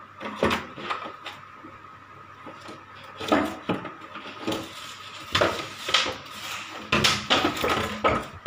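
Irregular clatter and knocks of objects being bumped and moved as a Rottweiler puppy rummages under a rack, with the loudest knocks in the second half.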